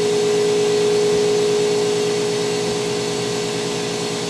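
Air compressor running steadily to inflate a tire, with a steady hum and a fast low pulse, pushing air in to seat the tire bead at around 10 to 20 PSI.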